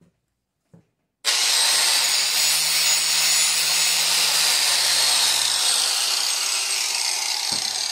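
Electric angle grinder starting up about a second in and grinding against a broken steel ATV frame bracket, taking the paint off to prep it for welding. A steady, loud, high-pitched grinding noise over the motor's hum, easing off slightly near the end.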